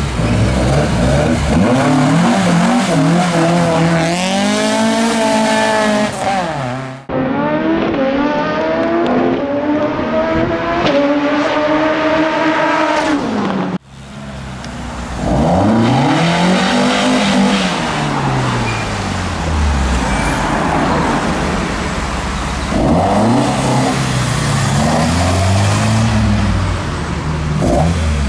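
Classic Ford car engines revving and accelerating away one after another. First comes a rev that rises and falls. After an abrupt cut, one engine climbs steadily in pitch under hard acceleration. After a brief drop-out, more revs rise and fall.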